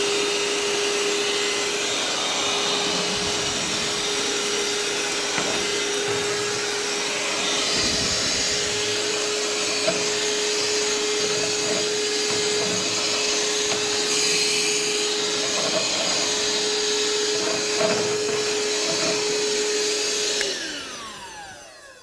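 RIDGID 18-volt compact hand vacuum, with its brushed (not brushless) motor, running at a steady pitch while it sucks up a pile of dirt and sawdust. Near the end it is switched off and the motor winds down, its pitch falling.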